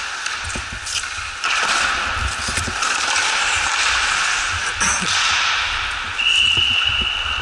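Ice hockey play on a rink: skates scraping on the ice, with scattered stick and puck knocks. About six seconds in, a referee's whistle sounds one steady, held blast lasting over a second.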